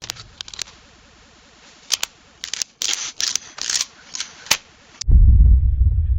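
Camera shutter and mechanism clicks, about a dozen at irregular spacing over a faint hiss. About five seconds in they cut off and a loud, deep sci-fi space rumble starts abruptly and keeps going.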